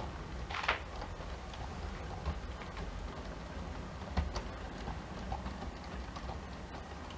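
Model passenger train rolling past, its wheels clicking now and then on the track over a steady low rumble.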